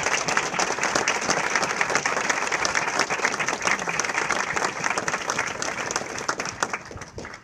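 A room full of people applauding: dense, steady clapping that thins out and stops near the end.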